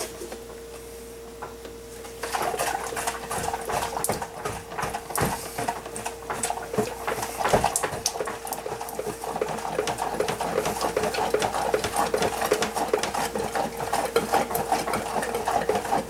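A coffee maker's plastic water tank being shaken hard, starting about two seconds in: rapid, continuous rattling and sloshing of water inside. The shaking is meant to loosen leftover descaling chemical and scale before the tank is drained.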